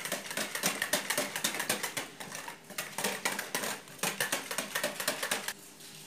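Wire whisk beating yogurt and spices in a plastic bowl: a rapid run of clicks and taps that stops about five and a half seconds in.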